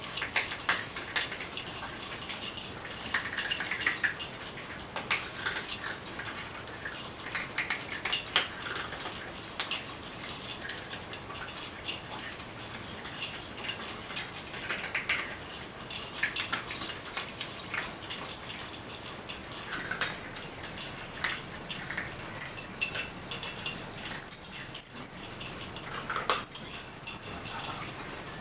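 Nine cats eating together from small bowls: a dense, irregular clatter of crunching and clinking against the bowls.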